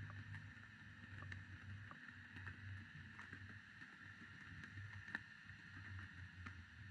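Faint underwater ambience picked up by a submerged camera: an uneven low rumble with a steady hiss and scattered sharp clicks, one clearer click about five seconds in.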